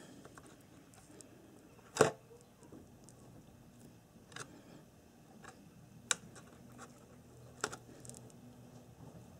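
Handling noises as a rewound field coil is fitted into the metal shell of a motorcycle alternator rotor: a sharp knock about two seconds in, then three lighter clicks, over a faint steady hum.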